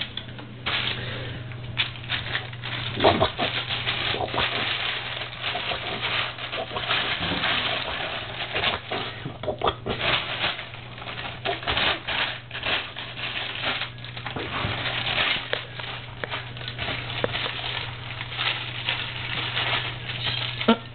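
A ferret tussling with a plastic packaging wrapper: rapid, irregular crinkling and rustling of the plastic, with scrabbling on the floor.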